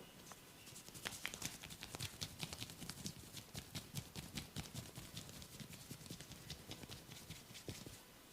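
Hair cracking during a head massage: tufts of hair tugged against the scalp give a fast, irregular run of small snaps and crackles, several a second, starting about a second in and dying away near the end.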